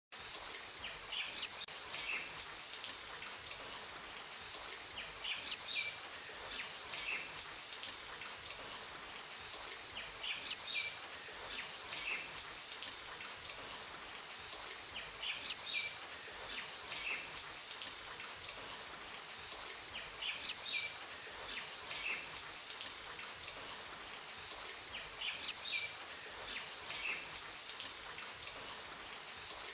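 Looped nature-ambience track: birds chirping in short clusters over a steady hiss of rain, the same stretch repeating about every five seconds.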